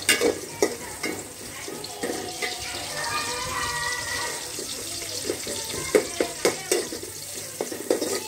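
A metal spoon stirring sliced onions in an aluminium pot, clinking and scraping against the pot many times over the steady hiss of the cooking.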